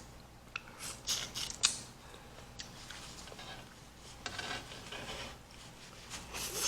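Faint mouth sounds of kiwi being eaten: a few short wet clicks and smacks, then a soft slurp-like hiss about four seconds in.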